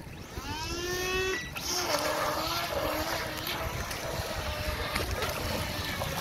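Feilun FT012 RC speedboat's brushless electric motor whining up in pitch for about a second and a half as throttle is applied, then running on at a wavering pitch as the boat speeds off through choppy water, over a steady hiss of wind and water.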